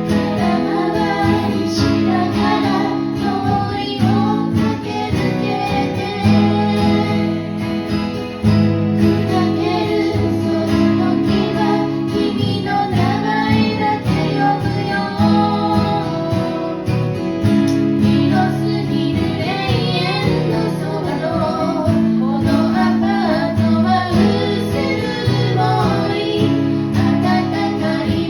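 Acoustic guitar strummed while a voice sings a melody over it.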